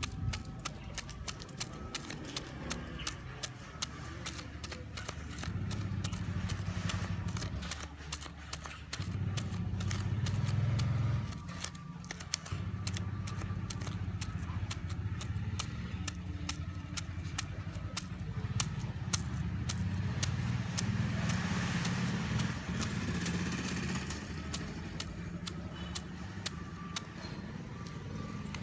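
Long fingernails tapping rapidly on an apple's skin: a run of sharp clicks, several a second, that thins out near the end.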